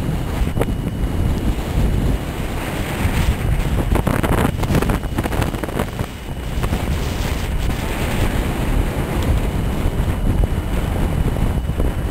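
Strong wind buffeting the microphone, a heavy low rumble, with the engines of distant snowmobiles running underneath.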